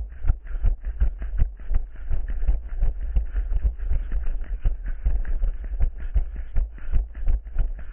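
Running footsteps thudding in a steady rhythm, a few strides a second, with the rustle of the runner's movement and a low rumble of the body-worn microphone being jolted with each stride.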